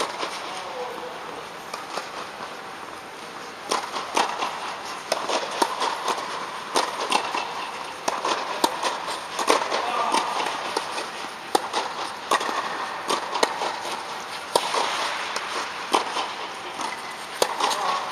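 Tennis balls being struck by rackets and bouncing during rallies across several indoor courts: irregular sharp pops, sparse at first and coming thick and fast from about four seconds in, with faint voices underneath.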